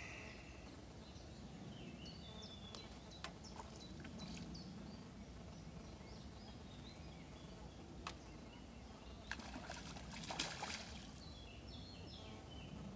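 Quiet pond-side outdoor ambience: small birds chirping now and then, a few light clicks, and water sloshing briefly about ten seconds in.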